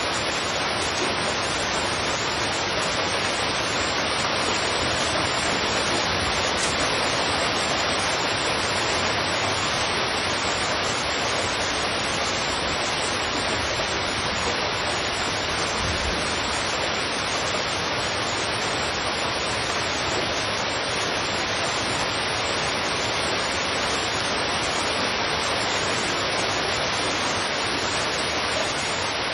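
Heavy rain falling steadily, a constant even hiss with no distinct drops or thunder.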